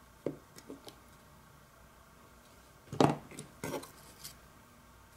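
Handling of hard plastic detector parts and a circuit board on a work surface: a few light clicks in the first second, then a louder clatter of knocks about three seconds in as the parts are set down and the board is picked up.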